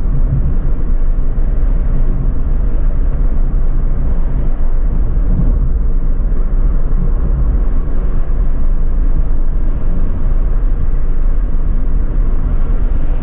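Steady low rumble of a Suzuki Alto's engine and tyres on the road, heard from inside the cabin while driving.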